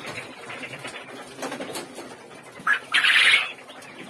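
Caged Japanese quails calling: a short note about three seconds in, straight away followed by a longer, harsher rolling call, over softer rustling from the birds.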